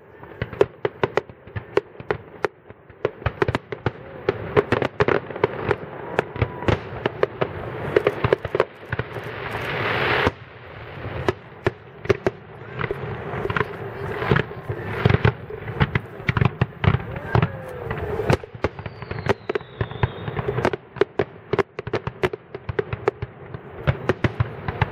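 Fireworks display: aerial shells bursting with sharp bangs and crackles in quick succession throughout. A rising hiss builds and cuts off abruptly about ten seconds in.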